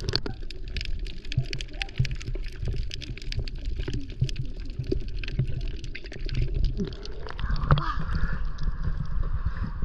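Underwater sound heard through a submerged action camera: a muffled low rumble scattered with many sharp crackling clicks. About seven seconds in the camera breaks the surface and the sound turns to water sloshing and splashing around it.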